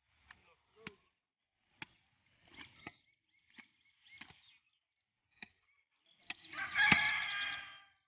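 Cleaver chopping beef on a wooden log chopping block: sharp, irregular chops roughly once a second. Near the end a rooster crows for about a second, the loudest sound.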